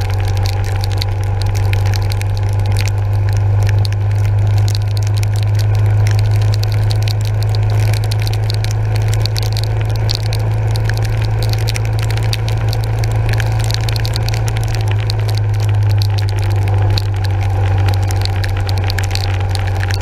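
Yamaha SR400's air-cooled single-cylinder engine running at a steady cruise, with a constant crackle of raindrops hitting the camera housing and spray hiss from the wet road.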